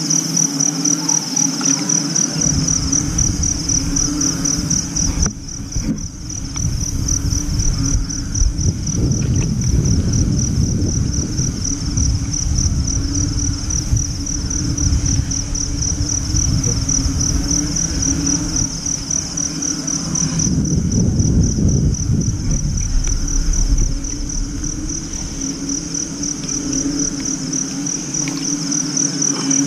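Crickets trilling in a steady, high, rapidly pulsing chorus. From about two seconds in, a louder low rumbling noise of hands working in the muddy water runs under it, fading near the end.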